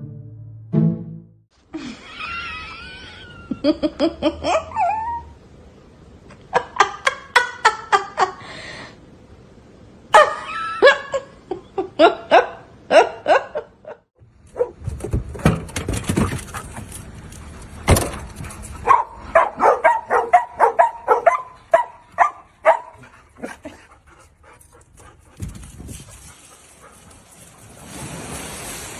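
Dogs vocalizing in a series of short clips: a high wavering whine or howl, then runs of quick repeated barks or yaps, with music. Near the end a steady rushing noise takes over.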